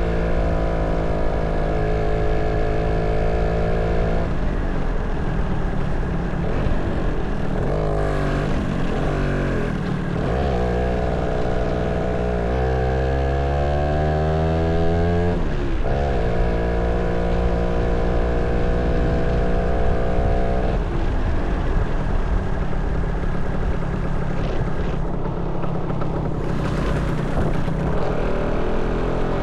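Motorcycle engine running while riding. It holds a steady pitch for stretches. About halfway through the pitch climbs for a few seconds as the bike accelerates, then drops sharply at a gear change.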